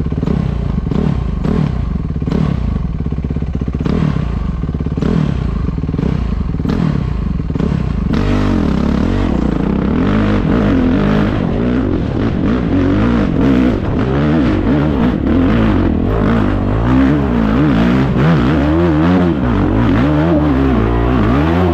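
Dirt bike engine revving up and down as the throttle is worked on a rough, rutted trail climb, with knocks and rattles from the bike over the ground. The revving grows harder and busier from about eight seconds in as the climb steepens.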